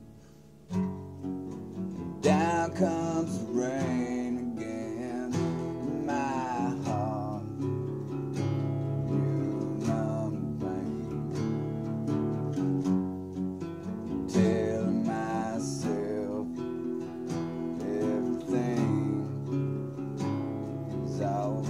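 Acoustic guitar strummed and picked as song accompaniment, coming in after a brief pause just under a second in, with a voice singing over it in a few wavering phrases.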